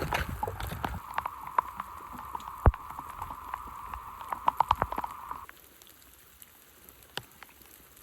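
Steady rain with sharp drops ticking, and one louder knock about three seconds in. The rain sound cuts off abruptly about five and a half seconds in, leaving only scattered drips.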